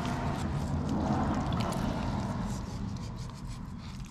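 Fillet knife slicing along a flathead catfish's backbone: a wet rubbing, squelching sound of the blade working through the flesh, swelling about a second in.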